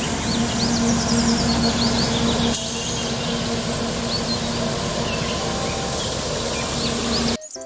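Street sweeper truck at work: a steady rushing machine noise with a steady hum that drops away about two and a half seconds in, while small birds chirp over it. The sound cuts off abruptly just before the end.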